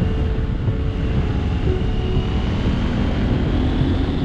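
KTM 790 Adventure R's parallel-twin engine running while riding, with wind buffeting the microphone. A faint engine tone creeps up in pitch near the end as it speeds up.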